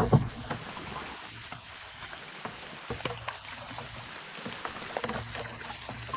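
Rain falling, heard as a steady hiss dotted with many small drop ticks, with two louder knocks right at the start.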